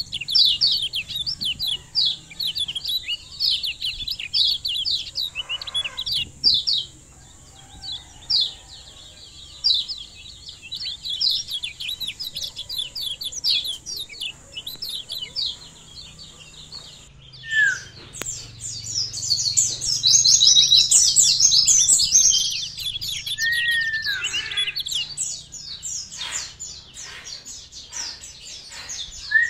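Kecial kuning white-eye singing a fast, continuous run of short high chirps, many a second, growing louder and denser about two-thirds of the way in, with a few lower down-sliding whistled notes. A thin steady high tone runs under the first half and cuts off suddenly.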